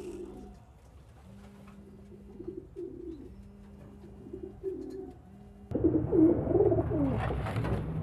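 Domestic pigeons cooing in repeated low, pulsing phrases, growing louder and busier about two-thirds of the way in.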